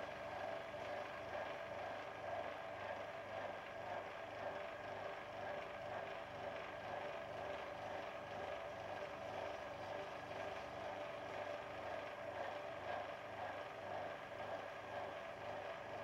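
Wood lathe running at a steady speed while a cloth is held against the spinning wooden knob to buff it, a constant motor hum with a low, even pulse.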